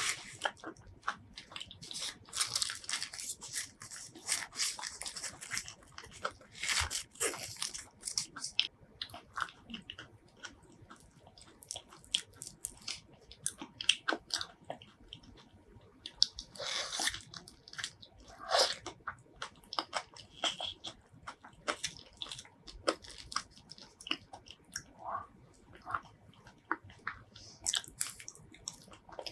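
Close-miked eating sounds of Thai mini durian: wet chewing and biting of the soft flesh, with fingers pulling the pods apart and handling the paper wrappers, in many short irregular clicks and rustles.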